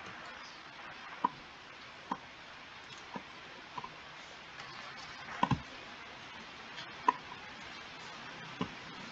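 Irregular sharp clicks from a computer pointing device, about nine of them, some in quick pairs, over a steady low hiss.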